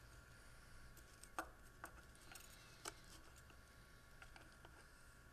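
Near silence: a faint steady hum and three faint light clicks in the first three seconds as a piston is handled and fitted onto its connecting rod.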